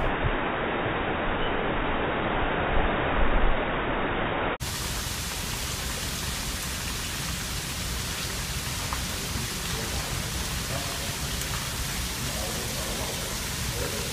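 Heavy storm rain, a steady hiss. About four and a half seconds in it cuts abruptly to a brighter, even rain hiss falling on floodwater.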